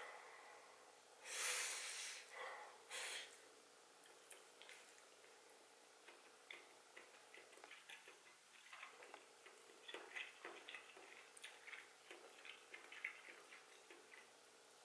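Close-miked mouth sounds of a person chewing a mouthful of rice with the mouth closed: soft wet clicks and smacks, thicker in the second half. Near the start there are two short, louder rushes of breath.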